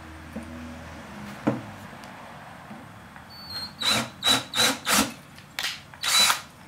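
Cordless drill boring into a metal tube, its trigger pulsed in six short bursts of whining, with a light knock earlier on.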